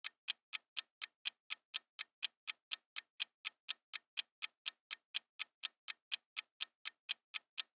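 Quiz countdown timer sound effect: a clock ticking evenly, about four to five crisp ticks a second, counting down the time to answer.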